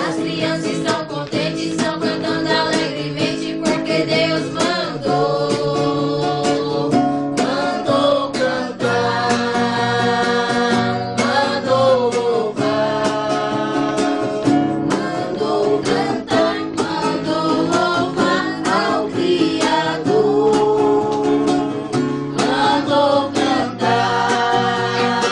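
A small group of men and women singing a hymn in Portuguese together, accompanied by a strummed acoustic guitar.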